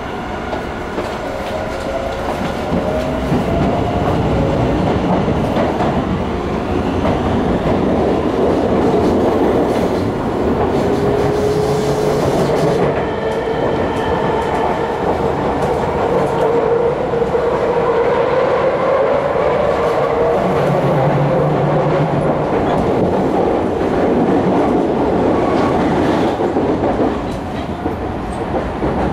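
Interior of a Tobu 50000-series electric train's motor car pulling away and running at speed: the traction motors whine with a rising pitch as it accelerates, over a steady rumble of wheels on rail with some rail-joint clatter.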